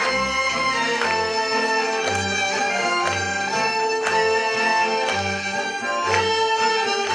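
Romanian folk orchestra playing an instrumental passage, violins leading over double bass and cimbalom, with a steady beat.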